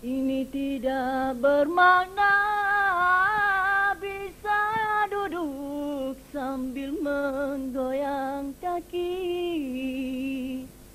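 A young man's high voice singing an unaccompanied, melismatic Malay dikir barat solo into a microphone. He holds long, wavering notes with ornamented turns and breaks briefly between phrases, with no drums playing.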